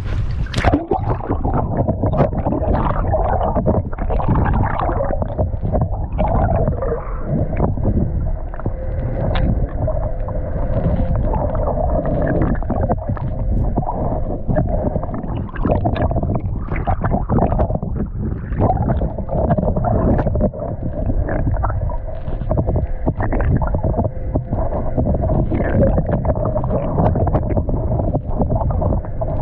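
Muffled gurgling and sloshing sea water with irregular dull knocks, the sound dulled as if the microphone is in or against the water.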